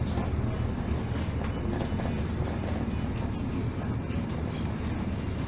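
Interior drone of a Volvo Super Olympian double-decker bus: its diesel engine and drivetrain running steadily, heard from inside the passenger cabin. Thin high whines come and go over the drone, one brief and clear about four seconds in.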